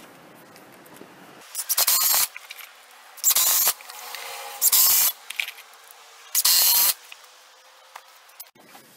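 A DeWalt cordless impact driver hammering 2 7/8-inch lag screws into wood, in four short bursts of about half a second each, roughly a second and a half apart.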